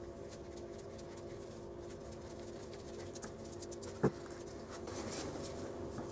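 Light scratching and small clicks of wooden and metal parts being handled by gloved hands, with one sharp knock about four seconds in, over a steady low hum.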